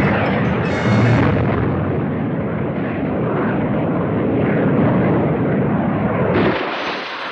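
Cartoon sound effect: a loud, continuous rumbling noise that cuts off suddenly about six and a half seconds in, followed by music.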